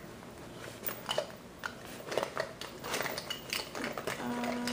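Makeup containers and eyeshadow compacts clicking and knocking together as someone rummages through a makeup collection looking for an eyeshadow, in a scattering of separate short clicks.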